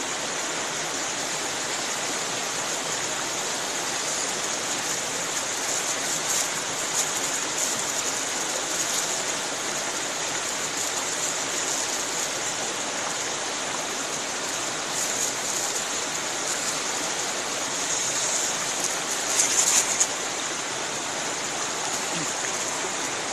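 Mountain river running steadily, an even rushing hiss of water. A few brief, louder crackles stand out about three-quarters of the way through.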